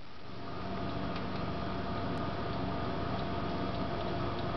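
Steady background hum and hiss with a few faint ticks.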